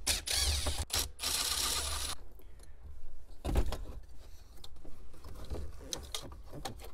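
Cordless drill-driver whirring in short runs as it backs out the radio module's mounting bolts, its motor pitch sliding up and down. It stops about two seconds in. Then come scattered clicks and rattles with one sharp knock, as the sheet-metal radio module is worked loose by hand.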